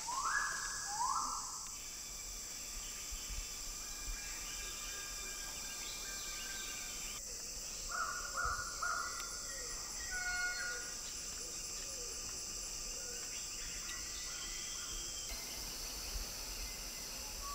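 Male magnificent riflebird, a bird of paradise, calling: two loud sweeping whistles at the start, and a run of short whistled notes about eight seconds in. Under it runs a steady high hum of rainforest insects.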